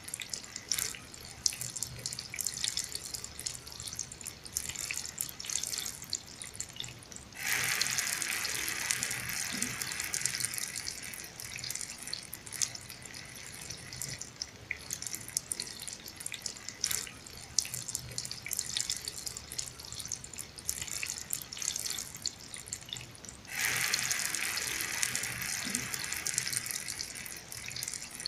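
Heavy rain falling, a steady wash dotted with the patter of many single drops. About seven seconds in, and again about five seconds before the end, it suddenly swells into a louder rush that lasts a few seconds.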